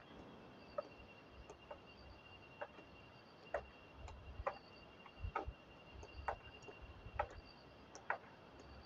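Scissors snipping at cloth: a string of faint, irregular clicks.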